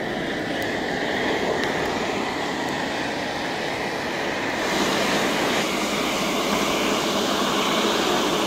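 Hairdryer forcing air through a copper pipe into a coal-fired forge: a steady rushing hiss with a light motor whine as the coals burn under the blast. About halfway through, the hiss turns louder and brighter.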